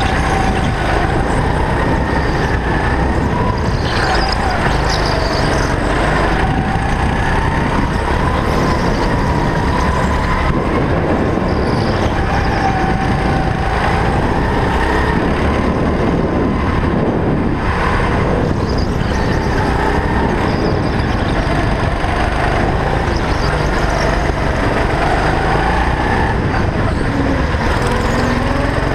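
Go-kart engine running hard under the seat, heard on board, its pitch rising and falling every few seconds as the driver brakes and accelerates through the corners.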